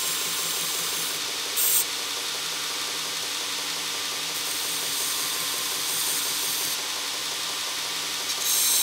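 Belt grinder with a 220-grit belt running steadily, with short spells of grinding hiss as the bandsaw-cut end of a steel ruler blade is touched to the belt to take off the burr: a brief touch about a second and a half in, a longer, lighter one in the middle, and another near the end.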